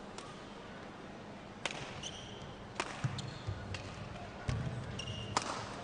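Badminton rally: sharp racket strikes on the shuttlecock about once a second, with brief shoe squeaks on the court mat and low thuds of footwork between shots.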